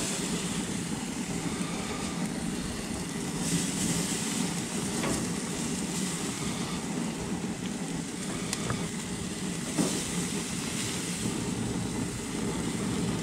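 Octopus tentacles sizzling on the hot grates of a gas grill, over a steady low rumble, with a few light clicks as pieces are laid down.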